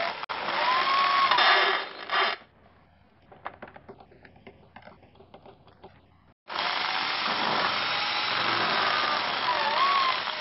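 Electric hand drill in a drill press stand running and drilling into a wooden board, its motor whine dipping and rising with the load. It stops about two seconds in, leaving a few seconds of faint ticks, then starts again at full speed about six and a half seconds in.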